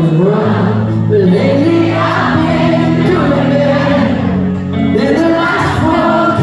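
Live pop music with singing over a band, amplified in a large hall.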